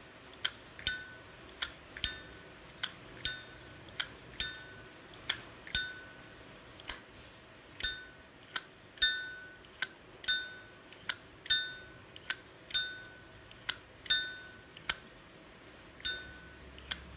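Zippo lighter flicked open and snapped shut over and over: sharp metallic clicks about twice a second, many followed by a short, clear bell-like ring from a lighter tuned for its chime.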